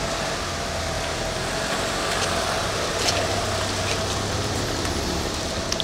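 Sedan's engine running as the car pulls slowly forward out of a parking area, growing a little louder as it comes closer, with a few faint clicks.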